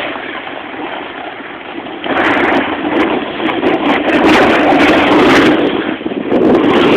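Rushing noise of a snowboard sliding fast over snow with wind buffeting the microphone, growing sharply louder about two seconds in.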